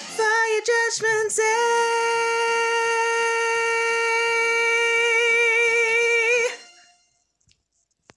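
A woman singing unaccompanied: a few short syllables, then one long high note with vibrato held for about five seconds as the song's final note, fading out a second before the end.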